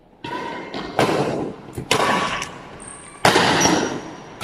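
Badminton rackets striking the shuttlecock in a fast rally, four sharp hits about a second apart, each echoing through the large hall. A brief high squeak of a shoe on the wooden court comes near the end.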